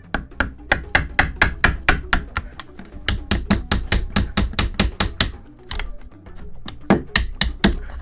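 Hammer blows on wood, knocking a fitted wooden piece into alignment: a steady run of sharp strikes at about four a second, a short pause, then a handful of harder blows near the end.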